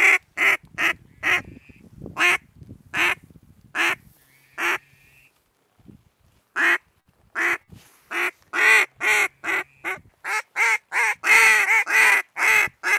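Mallard duck call blown in short, loud quacks: a few spaced single quacks, then after a pause of about a second and a half a long, quicker run of quacks, the cadence of a hunter calling to passing ducks.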